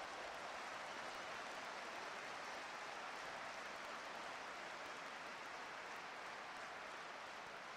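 Crowd noise from the stands at a football match: an even wash of many spectators, with no distinct chant or cheer, easing slightly as it goes.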